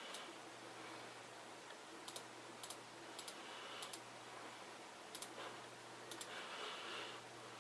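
Computer mouse button clicked about six times at irregular intervals, each a quick press-and-release double click, over a steady low hum.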